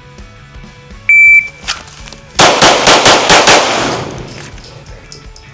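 Shot timer beep, then about 1.3 seconds later six pistol shots in quick succession, two on each of three targets, with echoes fading away after the last shot.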